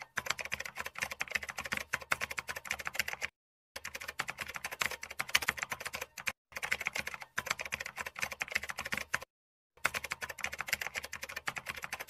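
Typing sound effect: rapid key clicks in long runs, broken by three short pauses, about a third, halfway and three quarters of the way through.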